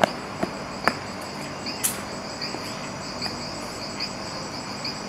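Crickets chirping steadily, with a few quick, sharp footsteps on stone paving in the first second, then fainter steps.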